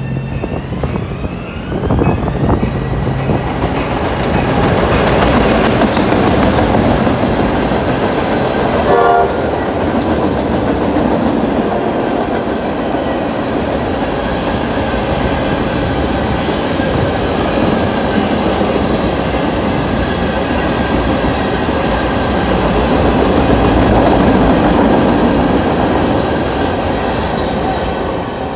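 A train passing close by: a loud, steady rush of wheel and rail noise that builds over the first few seconds and eases off near the end, with a short horn blast about nine seconds in.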